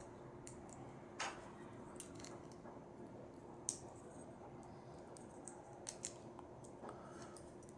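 Small handling sounds from opening a Lego minifigure blind-bag packet and its plastic parts: scattered light clicks and crinkles, a few sharper ones about a second in, near the middle and around six seconds in, over a faint steady hum.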